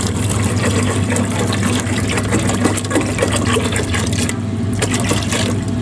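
Water being poured from a container into a pot of soaked red beans, splashing and running steadily, with the pitch of the filling rising here and there.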